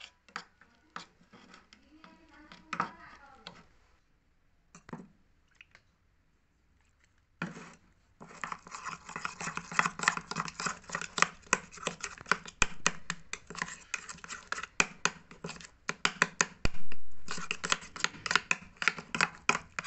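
A spoon scraping and clicking against a ceramic bowl as it stirs a thick paste of curd, turmeric and aloe vera gel. There are a few scattered scrapes at first, then fast, continuous stirring from about seven seconds in.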